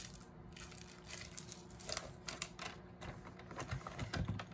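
Packaging handled by hand: a clear plastic wig-cap packet and a wrapper crinkling and clicking irregularly, with a few soft thumps about four seconds in.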